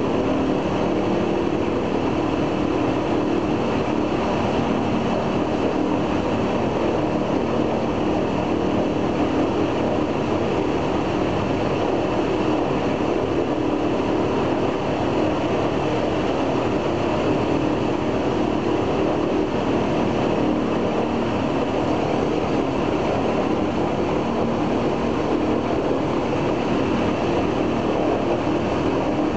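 Ilyushin Il-14's left engine, a Shvetsov ASh-82T fourteen-cylinder radial, running steadily during a ground run-up, heard from inside the cockpit. Its pitch and loudness stay even throughout.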